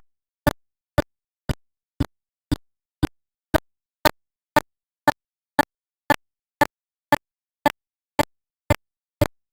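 A steady series of short, sharp clicks, evenly spaced at about two a second with dead silence between them, stopping shortly before the end.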